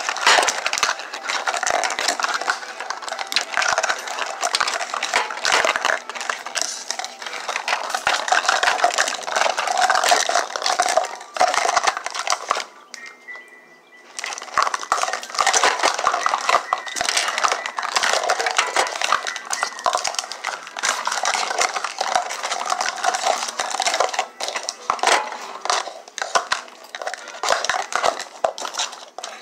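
Small thin plastic jello-shot cups clattering and rustling as they are handled and set against one another close to the microphone, with long acrylic nails clicking on the plastic; a dense, continuous run of clicks that pauses briefly about halfway through.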